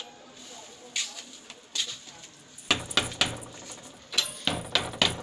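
Sandals slapping on a paved lane in footsteps, then two short bouts of rapid knocking and rattling at a wooden door, its metal latch clattering.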